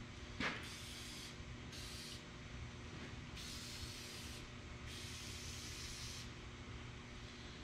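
Aerosol can of WD-40 rust-releasing penetrant spraying in four short hissing bursts, the last two longer, with a small click just before the first: penetrant being soaked onto an engine's seized fasteners.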